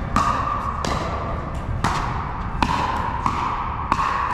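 Pickleball rally: paddles striking the hollow plastic ball, about six sharp pops spaced roughly a second apart, each with a short ring.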